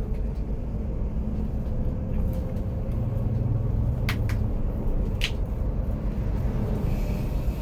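Steady low engine and road rumble inside the cabin of a Volvo B11R coach on the move. Two brief sharp clicks about a second apart near the middle.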